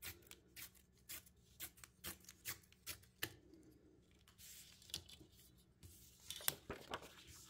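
Scrapbook paper being torn along the jagged edge of a tearing ruler: a series of small, crisp rips and ticks. A louder rustle near the end as the ruler and torn strip are moved.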